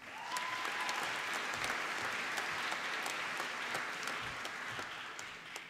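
Audience applauding a graduate, starting at once and fading out near the end.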